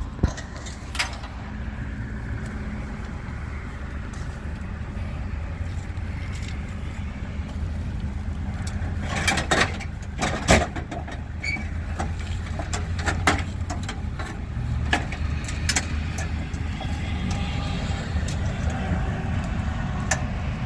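A vehicle engine idling steadily, with scattered sharp metal clanks and knocks as scrap metal is handled, the loudest cluster coming about nine to eleven seconds in.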